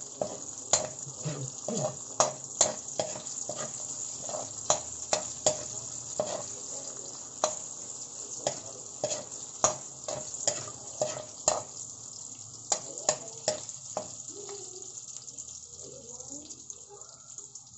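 Chopped garlic and ginger sizzling in hot oil in a metal wok, with a metal spoon clicking and scraping against the pan as they are stirred. The spoon strikes come about once or twice a second and thin out near the end.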